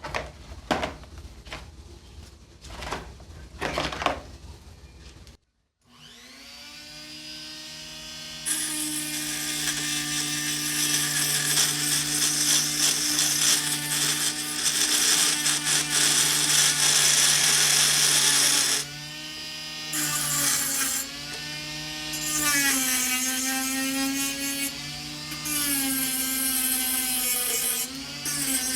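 A few knocks and clatters of handling, then an electric power tool spins up and runs steadily. In the last third its pitch sags and recovers several times, as a motor does under load.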